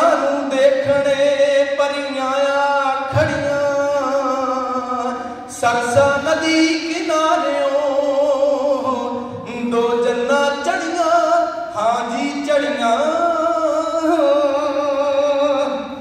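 A man singing a Sikh martyrdom verse solo into a microphone. He holds long notes with a wavering vibrato and takes a few short breaks for breath.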